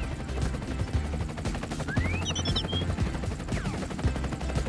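Animated-cartoon sound effects: a rapid run of crackling clicks over a low steady hum, with a short rising whistle and a few chirpy tones about two seconds in.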